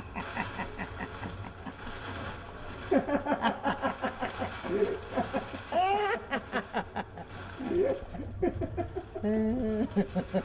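A man laughing out loud in repeated bursts of quick "ha-ha" pulses, starting about three seconds in.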